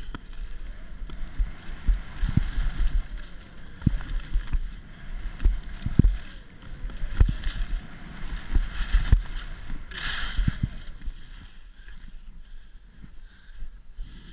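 Skis sliding and carving over packed snow on a downhill run, a steady scraping hiss with irregular low thumps. The hiss swells in a louder burst about ten seconds in, then goes quieter near the end.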